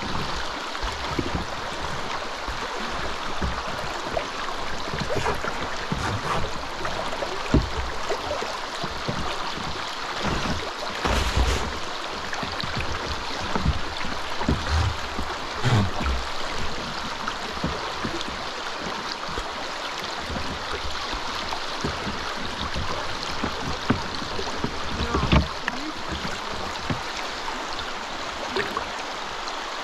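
River rapids rushing past the kayak hulls as a steady, even noise, with a few scattered low thumps and knocks.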